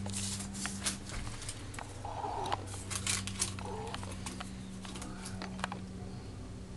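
A kitten batting a paper Band-Aid wrapper around a sink: quick crackles and ticks of the wrapper, thickest in the first few seconds and sparser later, over a low steady hum.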